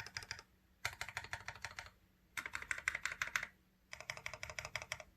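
Fast typing on a mechanical keyboard with lubed Kailh burgundy linear switch stems in Gateron milky yellow housings, a carbon fiber plate, a silicone pad between PCB and plate, and GMK keycaps. Four runs of rapid keystrokes with short pauses between them, stopping a little before the end.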